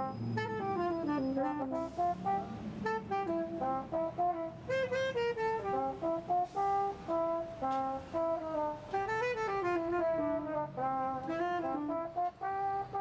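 A brass horn playing a melody of short notes that change pitch every fraction of a second.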